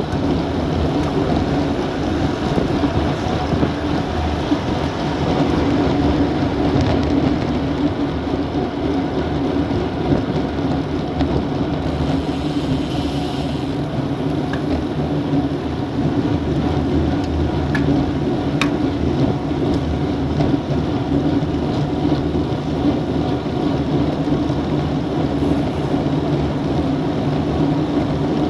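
Steady wind rush and rumble on a bike-mounted Garmin VIRB action camera's microphone while riding at road-cycling speed.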